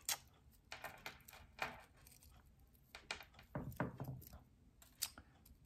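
Small metal jewelry pieces (charms, earrings and chain) clinking together as they are untangled by hand on a tabletop: a scatter of light, irregular clicks and ticks.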